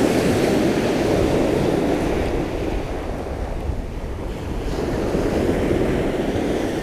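Surf breaking on a shingle beach at night, with strong wind buffeting the microphone. It eases a little around the middle and swells again toward the end.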